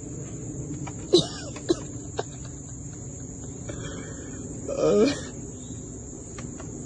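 Steady high chirring of insects throughout, with a few short sharp knocks about a second in and a brief voice exclamation about five seconds in.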